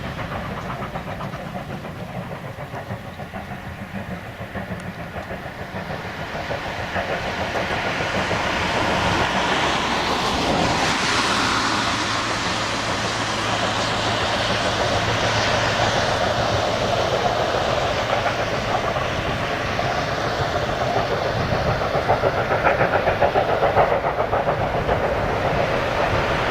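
Class 52 steam locomotive 52 1360, a 2-10-0 freight engine, running with its special train. The sound grows louder over several seconds about a quarter of the way in and then holds steady.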